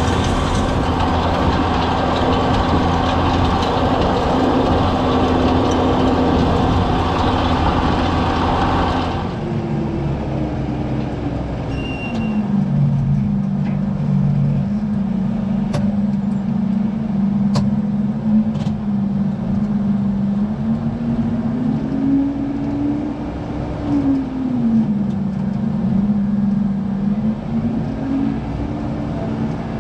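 Tractor diesel engine working under load, pulling a power harrow and seed drill through the field. It is fuller and louder for the first nine seconds, then changes abruptly to a steadier hum from a New Holland tractor whose engine pitch dips and rises a few times late on, with a few sharp clicks around the middle.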